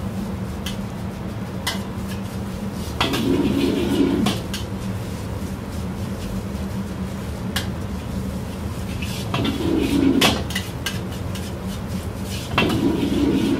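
Metal wok spatula scraping and knocking against a wok while stir-frying rice and egg, in several louder scraping passes with sharp clinks in between. Under it runs a steady low rumble from the wok stove.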